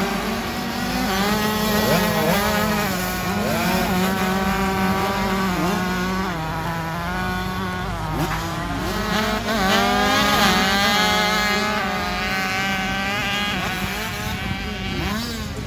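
Several 65cc two-stroke motocross bikes racing, their engines revving up and down with several going at once and overlapping, over a steady lower hum.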